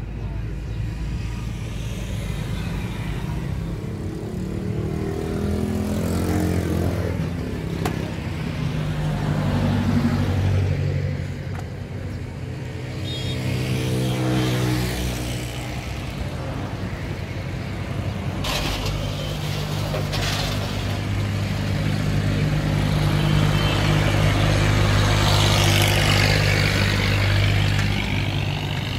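Diesel truck engine running steadily, its pitch rising and falling twice in the first half, with a few sharp knocks around the middle.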